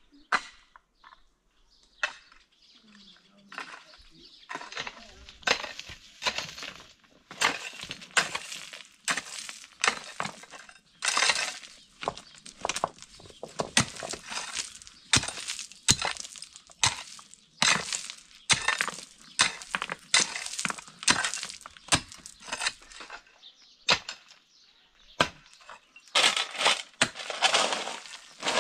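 Pickaxe, mattock and shovel digging into stony, gravelly ground: irregular metal strikes on rock with crunching and scraping of gravel, sparse for the first few seconds and then nearly continuous.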